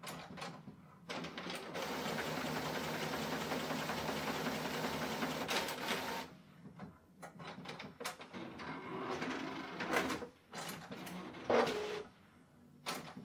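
Epson EcoTank ET-8550 inkjet printer starting a print: its mechanism runs with a steady whir for about five seconds, then makes a series of shorter whirs and clicks as it pulls the A3+ sheet in from the rear feed.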